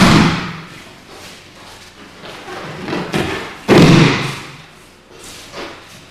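A body hitting the practice mat in aikido breakfalls: two heavy thuds, one at the start and one just under four seconds in, each echoing briefly, with a lighter knock shortly before the second.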